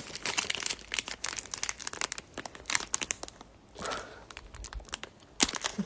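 Trading-card pack wrapper crinkling and being torn open by hand, a run of sharp crackles with a short quiet gap a little past halfway.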